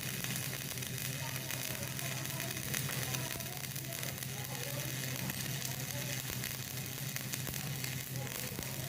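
Electric arc welding: the arc crackling and sizzling steadily as a weld bead is laid, over a steady low hum.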